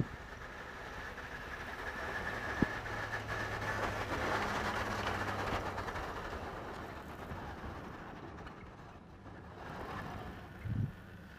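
2009 Chevrolet Silverado 2500HD pickup running under load as it pushes snow with a Western V-plow, heard from a distance; it grows louder over the first few seconds, then fades as the truck moves away. A single sharp click about two and a half seconds in, and a brief low thump near the end.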